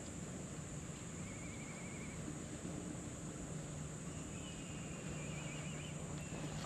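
Quiet outdoor background with a steady high-pitched drone, and two faint, thin warbling calls: a short one about a second in and a longer one past the middle.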